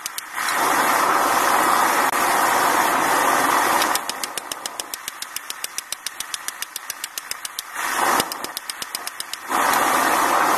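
A hand hammer striking hot steel on an anvil in rapid blows, several a second, as the Allen wrench is forged into a knife blade. A loud steady rushing noise comes and goes under the strikes.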